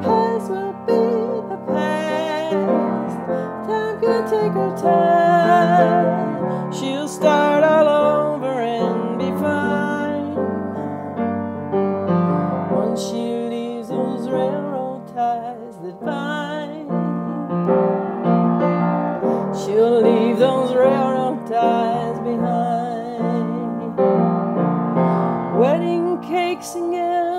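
A woman singing a slow song with piano accompaniment, her held notes wavering with vibrato between piano passages.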